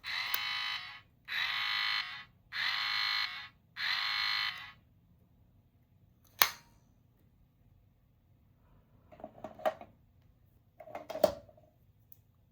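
A small electronic sound toy playing a buzzer-like tone four times in a row, each buzz about a second long. A sharp click follows, then two short spells of plastic clicking and rattling from the toy being handled.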